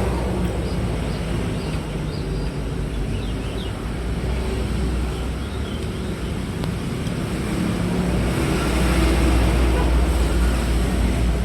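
Vehicle engine running steadily with road and traffic noise, growing a little louder in the latter part.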